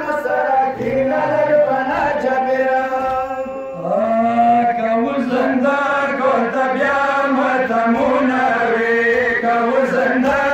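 Male voices chanting a Pashto noha, a Shia mourning lament, in long, held, sliding notes, with a brief break a little before the middle.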